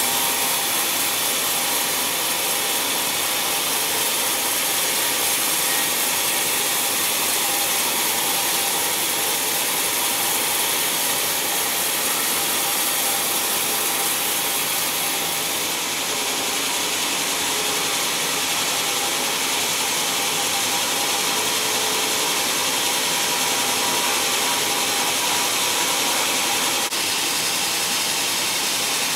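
Sawmill band saw cutting lengthwise through a thick timber block: a steady hiss of the blade in the wood over the running machine, unchanging throughout.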